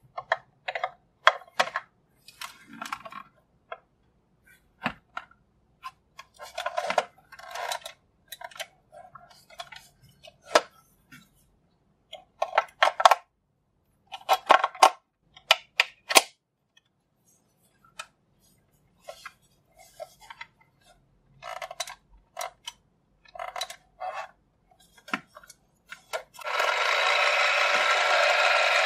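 Sharp plastic clicks and clatters as a toy stand mixer is handled and AA batteries are pushed into its battery compartment. Near the end the mixer's small battery motor switches on and spins its beater with a steady whir.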